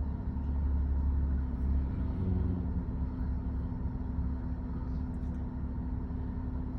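Steady low engine rumble with a faint constant hum and no distinct events, a little louder in the first couple of seconds.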